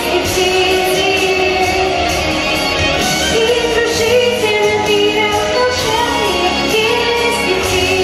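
Girl singing a pop song into a microphone over an instrumental backing track.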